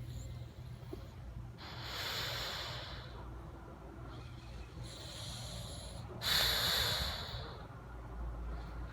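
Snoring: a run of noisy, snorting breaths every couple of seconds, the loudest about six seconds in.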